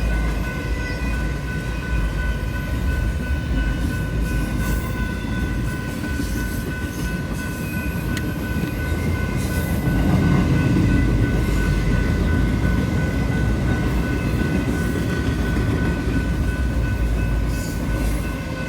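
A Union Pacific intermodal freight train rolling steadily past at a grade crossing, its wheels and cars making a continuous low rumble and clatter. The crossing warning bell keeps dinging over it.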